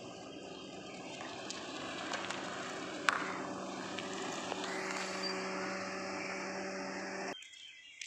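Toyota Premio 1.5-litre sedan approaching at low speed and pulling up, a steady engine and tyre sound with a constant hum that grows a little louder as it nears. A single sharp click about three seconds in; the sound cuts off abruptly near the end.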